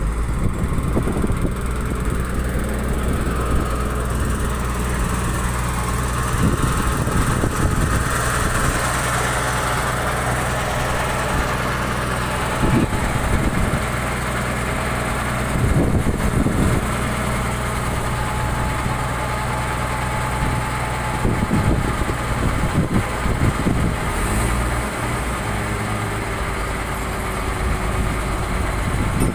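Excavator diesel engine running steadily, with a few short knocks from the machine now and then.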